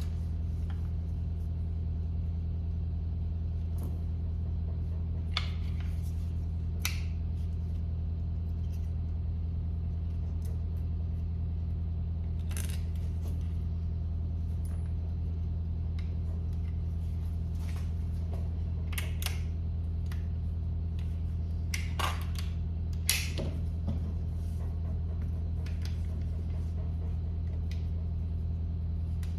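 Small metal parts clicking and tapping now and then as the trigger group's pins, springs and hammer are worked out of the AR9 lower receiver. Under the clicks is a steady low hum.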